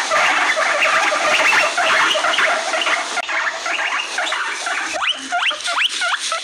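Guinea pigs wheeking: a dense chorus of overlapping rising squeals that thins out about three seconds in, then near the end one animal's separate sharp rising whistles, about four a second. Wheeking is the call guinea pigs use to demand attention or food.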